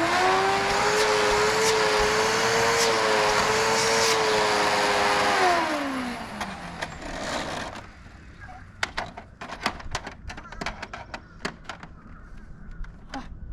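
Eureka Whirlwind Litespeed upright vacuum cleaner motor switched on, whining up to speed and running loud and steady for about five seconds, then switched off and winding down with a falling pitch. After that come a series of light clicks and knocks as the vacuum is handled.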